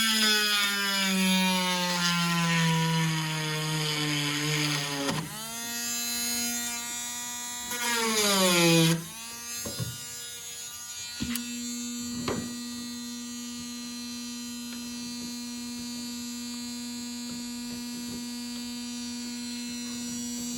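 Small electric drill running in two bursts, its pitch falling as it slows while cutting out a plastic pin hinge, stopping about nine seconds in. A few light clicks follow, then a steady hum to the end.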